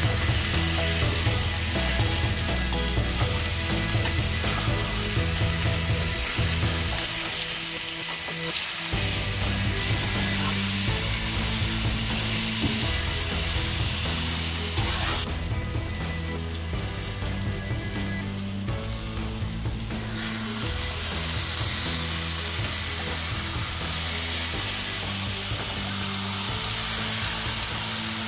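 Masala-coated chicken pieces and onions sizzling as they fry in a pan, stirred with a spatula, over background music. The sizzle drops away for a few seconds around the middle, then returns.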